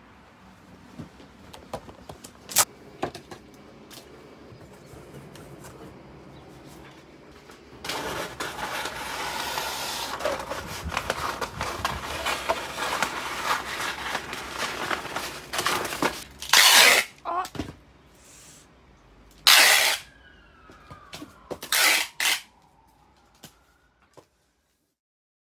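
Brown kraft paper being handled on a roll: a few light clicks, then several seconds of steady crinkly rustling and scraping, then three or four short, loud rips.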